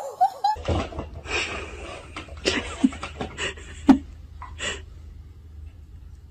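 A cat at an automatic pet feeder, pawing and eating at its metal bowl: a run of clinks, scrapes and rustles for about four seconds, over a low steady hum. A woman's brief high-pitched exclamation opens it.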